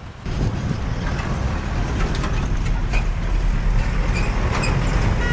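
Road traffic noise: a steady low rumble of passing vehicles that rises suddenly about a quarter second in, with a few sharp knocks.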